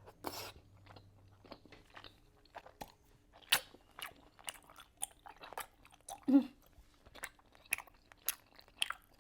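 Close-miked mouth chewing a mouthful of three chewy Korean rice cakes in spicy sauce: irregular soft clicks and smacks, with louder ones about three and a half seconds in and a little past six seconds.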